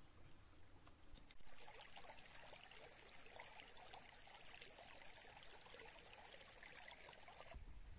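Faint trickling of a small stream, a steady watery hiss that starts about a second and a half in and cuts off suddenly just before the end.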